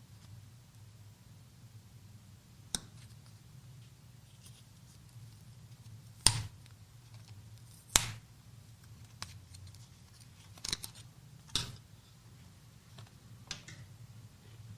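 Handful of sharp, isolated clicks and taps from handling an Apple Magic Keyboard and its packaging, about seven in all, the loudest two coming about six and eight seconds in.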